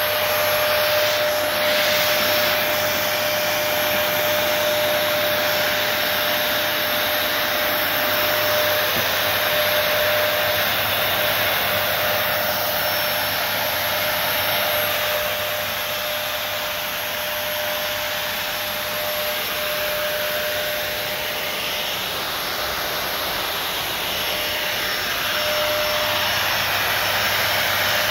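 Delta ULV cold fogger running steadily as it sprays disinfectant mist: its motor-driven blower gives a loud, even rush of air with a steady tone through it.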